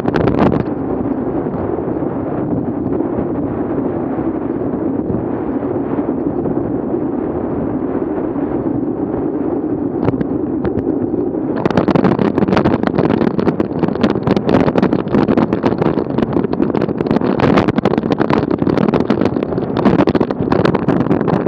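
Wind buffeting an action camera's microphone while riding: a steady rushing rumble that turns harsher and crackly about twelve seconds in.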